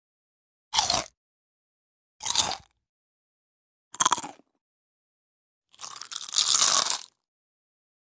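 Crisp bites into crunchy snack food, four separate crunches with silence between: two short chip bites, a short bite into a pistachio, then a longer crunching bite of about a second and a half near the end.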